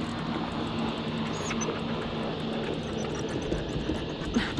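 Boat's outboard motor running with a steady low hum.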